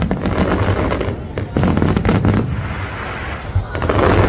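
Aerial fireworks bursting overhead in a finale barrage: dense volleys of bangs and rapid crackling, coming in several waves over a constant low rumble.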